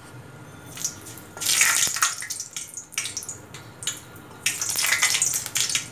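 Dried red chillies sizzling and crackling in hot oil in a steel pot, in two louder spells, as they are stirred with a wooden spatula.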